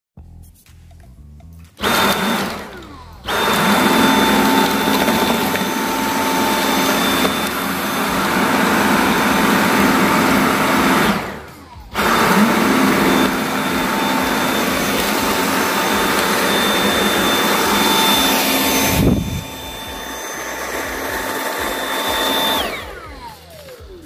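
Dyson V8 Slim Fluffy+ cordless stick vacuum running with a steady high whine, switched off and on: it starts about two seconds in, dips and restarts a second later, cuts out just after the eleventh second and spins back up, drops to a lower level after a thump near the nineteenth second, and winds down with a falling whine near the end.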